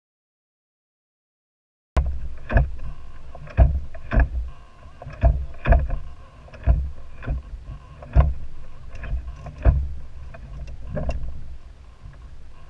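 Silent for the first two seconds, then wind rumbling on the microphone aboard a pontoon boat drifting in choppy water, with sharp knocks and slaps on the hull every half second to second.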